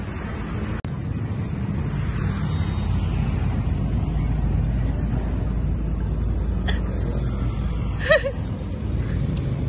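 Steady low rumble of road traffic, with one short high-pitched call about eight seconds in that rises and falls in pitch.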